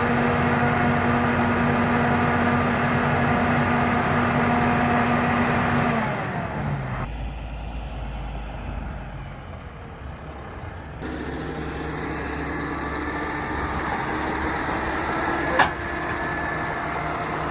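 Heavy diesel engine running steadily, its pitch dropping and the sound easing off about six seconds in. Engine noise carries on after that, with a single sharp click near the end.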